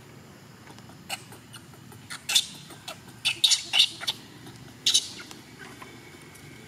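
Baby macaque giving short, shrill distress squeals, several in quick succession between about two and five seconds in, while its mother holds it down.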